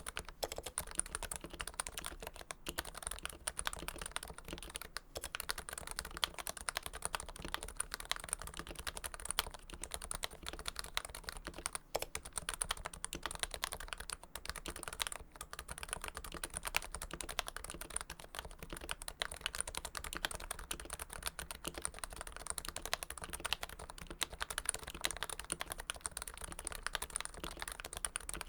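Continuous fast typing on a Realforce keyboard with Topre electrostatic-capacitive switches lubed with Krytox 105, a steady stream of soft keystroke clicks.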